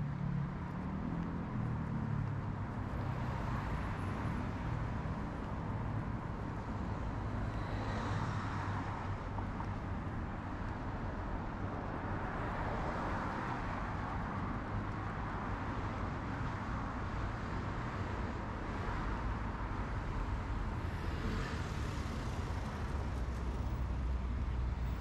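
Steady road traffic on a wide multi-lane city boulevard: a continuous rumble of engines and tyres, with passing vehicles swelling and fading every few seconds.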